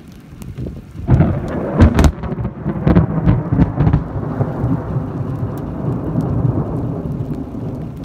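Thunder clap: a sudden crack about a second in, then heavy rumbling with several loud peaks that slowly dies away.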